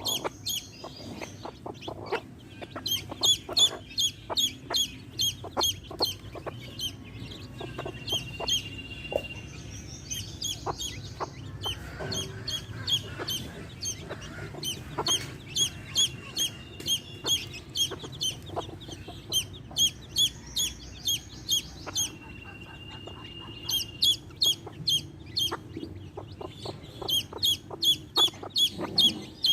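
Baby chicks peeping in long runs of short, high chirps, with a few longer drawn-out peeps, over hens clucking.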